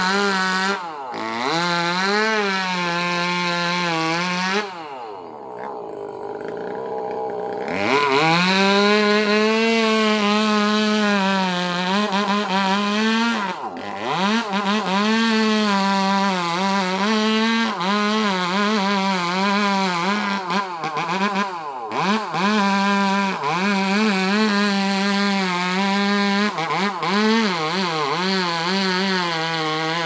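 Two-stroke chainsaw cutting through a tree limb at high revs, its engine note wavering as the chain bites into the wood. About five seconds in it falls back to idle for about three seconds, then revs up again and keeps cutting, with a few brief dips in speed.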